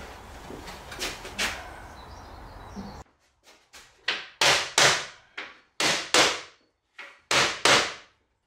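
A hammer knocking a wooden frame down onto the top of a wooden cabinet carcass, seating it in place. About a dozen sharp knocks, often in pairs, begin about three seconds in, after a few softer knocks as the frame is set on.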